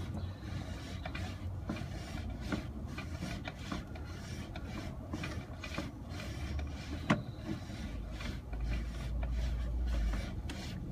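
Sewer inspection camera's push cable being pulled back out of the pipe, rubbing and ticking irregularly, with one sharper click about seven seconds in and a low rumble near the end.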